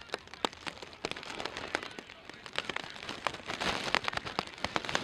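Light rain: scattered raindrops ticking close to the microphone over a steady hiss of rain, the hiss growing stronger about three and a half seconds in.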